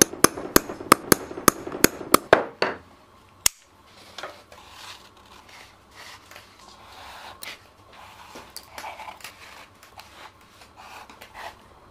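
A hammer tapping a small metal leatherworking tool held against leather, quick even strikes about three a second for the first two and a half seconds, then one more strike. After that, soft rubbing and rustling of leather being handled and bent, with a few small ticks.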